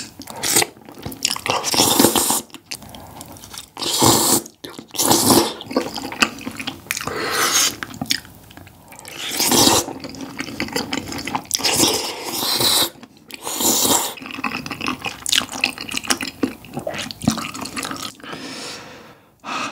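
Wet slurping of sauce-coated glass noodles (dangmyeon) from spicy tteokbokki, in repeated loud slurps every second or two with chewing in between.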